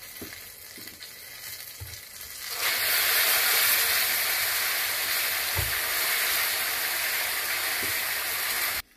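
Chicken wings deep-frying in hot oil for their second fry, to make them crunchier: a steady sizzle that gets much louder about two and a half seconds in and cuts off suddenly near the end.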